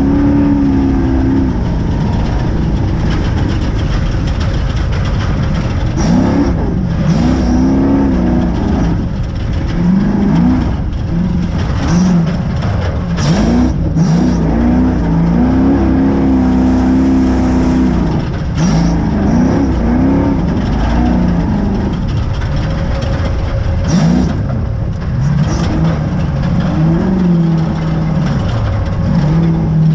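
Spec trophy truck engine at race pace, its pitch repeatedly rising and falling as the driver accelerates and lifts, over a constant rough rumble from the moving truck. Several sharp knocks cut through it.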